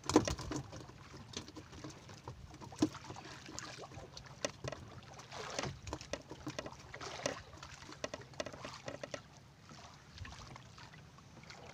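Small fishing boat on the sea: scattered knocks and splashes of water against the hull over a steady low drone.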